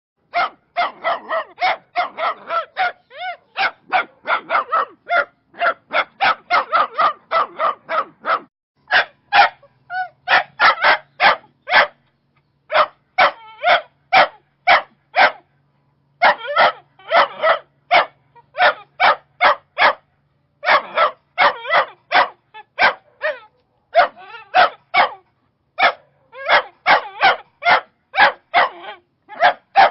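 Rottweiler barking over and over in quick runs of about three barks a second, broken by short pauses.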